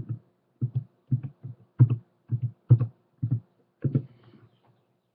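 A run of about a dozen dull knocks or thumps, roughly two a second, stopping about four seconds in.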